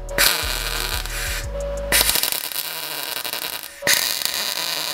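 Aerosol can of weld-through primer spraying in three long bursts with short breaks between, coating a steel repair bracket. Background music with a low beat runs under the first two seconds.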